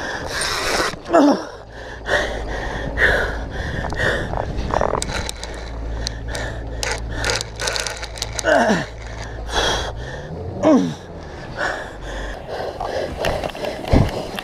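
A man gasping and groaning with effort while he strains to haul a big fish up on a heavy rod. Several short, falling groans are heard, with sharp clicks in the middle and a low rumble underneath.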